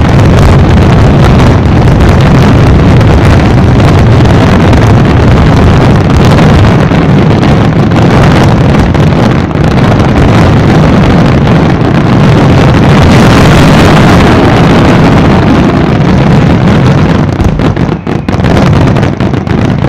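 A dense barrage of aerial firework shells bursting so fast that the bangs merge into one continuous loud rumble. Near the end the barrage thins into separate bangs.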